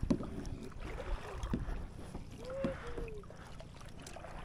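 A kayak being paddled on a lake: water sloshing and dripping off the paddle, with a few light knocks.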